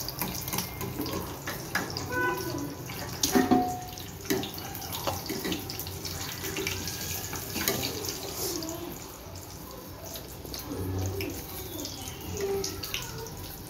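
Hot oil sizzling with many small pops as battered eggs for egg bajji deep-fry in a pan.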